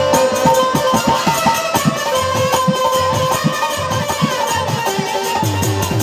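Instrumental folk music from a live stage band: quick drum strokes under a melody of long held notes.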